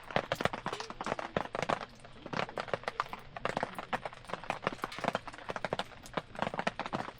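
Campfire crackling with rapid, irregular snaps and pops of burning wood.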